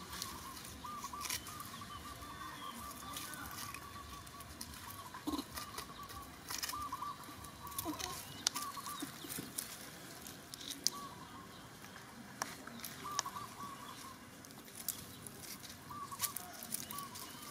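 Dry leaves crackling and rustling in scattered sharp clicks as macaques shift about on leaf-strewn ground. In the background, a faint run of short, wavering chirps repeats on and off.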